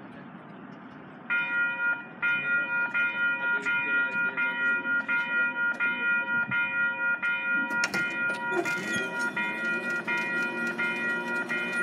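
Electronic level-crossing warning bell starting about a second in and striking steadily, about three dings every two seconds, the signal that a light-rail train is coming and the gates are lowering. A few sharp clicks join about eight seconds in.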